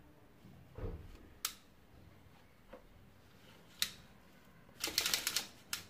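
Plastic parts of a vacuum cleaner's cable reel being handled: a soft knock, two sharp clicks, then a brief clattering rattle near the end.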